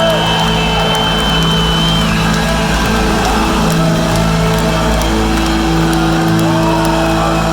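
Loud live rock band playing a long instrumental passage, with electric guitar holding long sustained notes.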